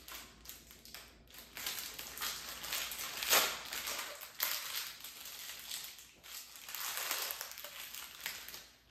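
Plastic packaging of a wine-making kit crinkling and rustling as the packets are handled, unevenly, with the loudest crinkle about three and a half seconds in.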